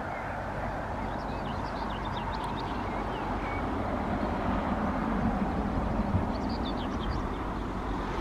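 Road traffic passing: a rushing swell of tyre and engine noise that builds toward the middle and eases near the end. Small birds chirp in short high notes over it.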